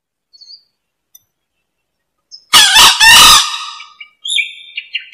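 A male green junglefowl crows once, about two and a half seconds in: a loud, short call in three quick parts, the last part drawn out and fading. A few short high chirps follow near the end.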